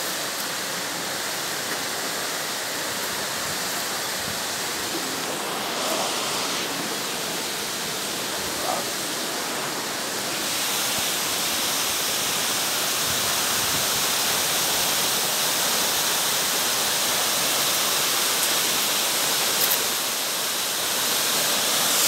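Steady rush of water from a small waterfall, growing louder and brighter about ten seconds in.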